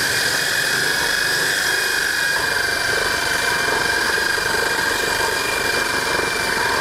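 Stand-mounted electric core drill running with a steady high whine, its water-fed, carbide-toothed core bit boring a hole through a wall.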